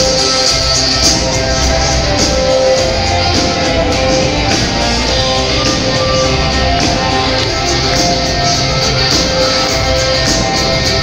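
A live band playing loudly, led by electric guitar over drums, heard from the audience of a concert hall.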